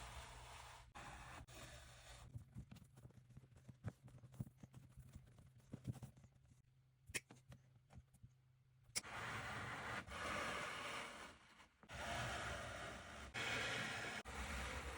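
Faint rubbing and scraping of hands working on a leather baseball glove, with scattered light clicks and a low steady hum in the quieter middle; the rubbing grows louder for the last several seconds.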